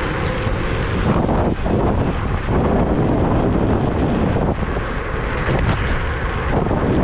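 Steady rush of wind over the microphone, mixed with road and traffic noise, while a Kaabo Mantis Pro SE electric scooter is ridden at speed.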